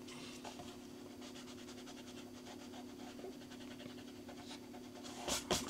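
Pencil eraser rubbing quickly back and forth on sketchbook paper, rubbing out a pencil outline, over a faint steady hum. Two louder rustles come near the end.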